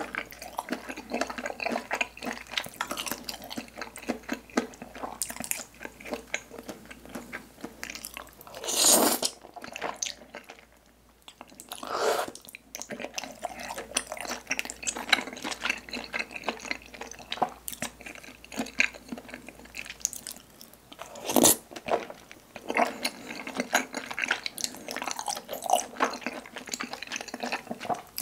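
Close-miked mouth sounds of someone eating spicy tteokbokki with glass noodles: continuous wet chewing and lip smacks. Two louder, longer wet sounds come about nine and twenty-one seconds in.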